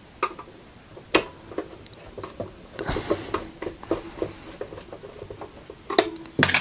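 Scattered clicks, scrapes and knocks of a screwdriver and hands working on a portable TV's plastic cabinet while it is screwed back together, with a short scraping patch about halfway and two louder knocks near the end.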